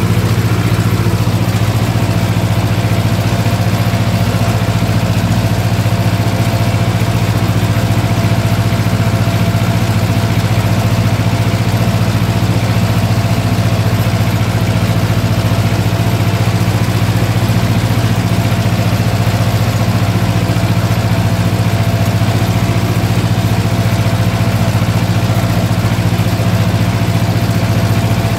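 Ursus C-330 tractor's two-cylinder diesel engine running steadily under load while pulling a plough through soil, heard from inside the cab.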